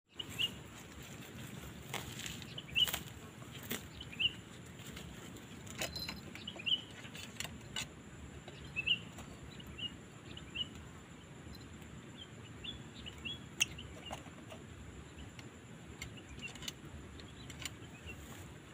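Quail giving short, high chirping calls every second or so, with scattered sharp clicks and knocks from the wire trap cage they are in.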